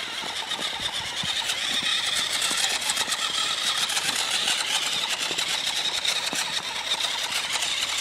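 Battery-powered remote-control ATV's electric motor and gears whining as it drives over snow, a high whine that wavers a little in pitch with the throttle.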